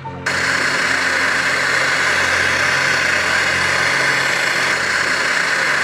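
Portable camping gas stove burner running at full flame under a pot: a loud, steady hiss that starts suddenly a moment in.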